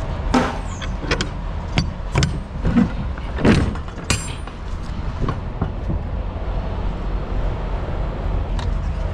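Sharp metal clanks and knocks from a semi-trailer's rear swing door and its door-hold hook being worked, over a steady low rumble of an idling truck. The knocks bunch in the first few seconds, with a couple more near the end.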